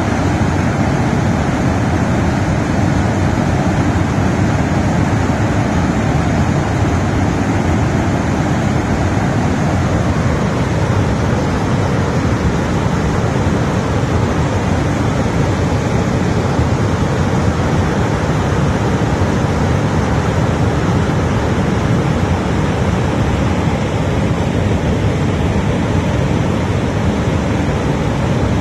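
Water pouring through the open spillway gates of the Sardar Sarovar Dam, a loud, steady rushing noise, heaviest in the low end.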